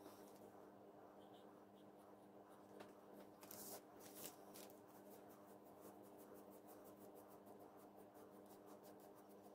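Faint, quick scrubbing strokes of a wool dauber rubbing dye onto a piece of leather, several strokes a second from about four seconds in, over a low steady hum.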